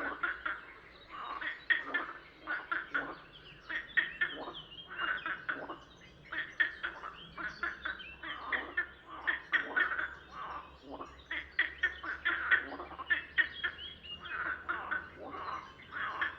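A chorus of frogs croaking, overlapping rattling calls made of rapid pulses, one following another without a break.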